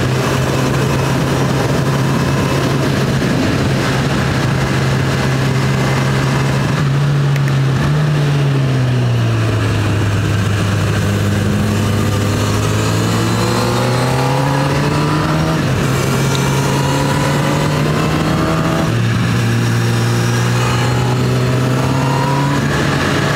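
Honda CB1000R's inline-four engine running at steady revs on the move, with wind rush over the microphone. A few seconds in the engine note slides lower and holds there, then climbs gradually. A little past the three-quarter mark it steps back up to its earlier pitch.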